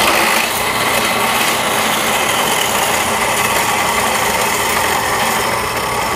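Metal-cutting band saw running steadily, its blade cutting through a metal tube under hand feed. The sound steps up right at the start and holds even throughout.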